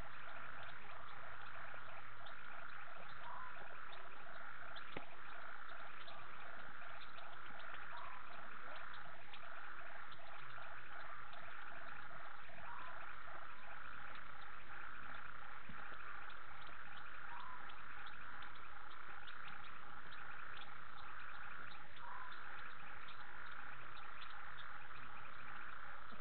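Night chorus of frogs and insects: a dense, steady high trilling, with a pulsing call repeated a few times a second. A short rising call recurs about every five seconds.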